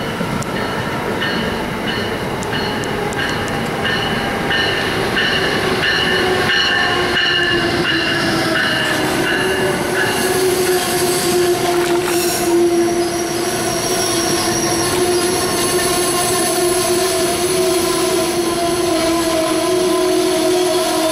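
Amtrak Northeast Regional train of Amfleet coaches rolling past close by. Steady squealing tones ride over the rumble of the wheels, and the squeal drops to a lower, steadier pitch about halfway through.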